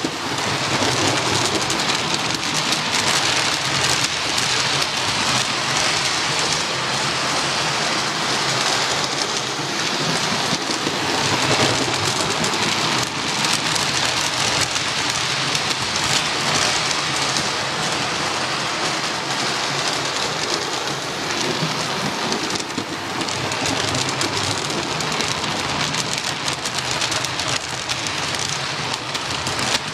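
Model Castle class locomotive and its coaches running past close by on the track: a steady, dense rolling hiss of wheels on rails.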